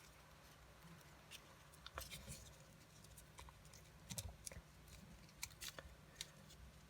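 Faint, scattered crinkles and taps of paper being folded and pressed by hand, in small clusters about two, four and five and a half seconds in.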